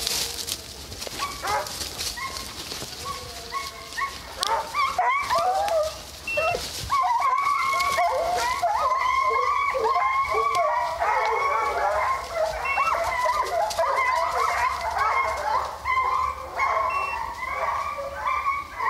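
A pack of deer hounds screaming on a track, many dogs baying and yelping over one another. It starts as scattered calls and thickens into a near-constant chorus from about seven seconds in, the sign of the pack running a deer hard.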